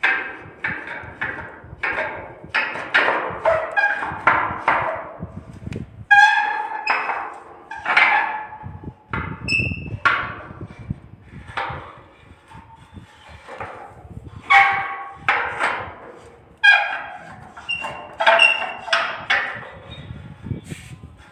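Spooky abandoned-house sound effect: a long run of sudden knocks and clangs at irregular spacing, each ringing out briefly with a metallic tone.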